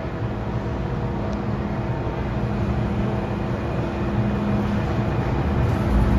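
MTR M-train's traction motors and inverter whining as the train accelerates out of a station: several steady tones over a rumble, growing steadily louder. This car's motor sound is an unusual variant of the class's whine.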